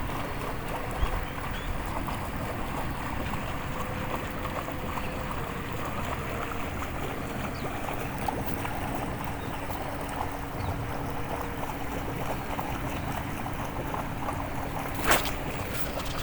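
Waterfall: a steady rush of falling water with a faint steady hum beneath it, and a single sharp click near the end.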